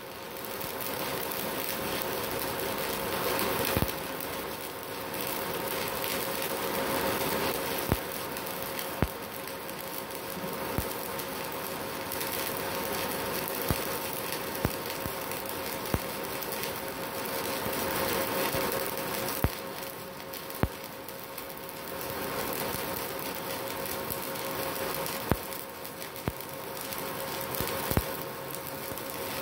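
Stick (MMA) welding arc struck from a MultiPro MMA 160 G-KRK inverter welder set to 120 amps: a steady crackle with sharp pops every second or two.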